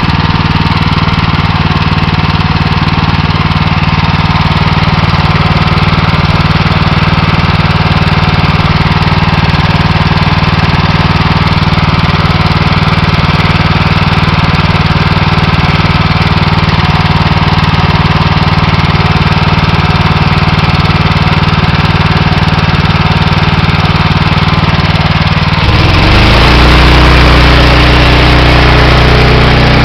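Honda GX390 single-cylinder engine running steadily on a pressure washer. Near the end its note drops and changes, and a loud hiss joins in.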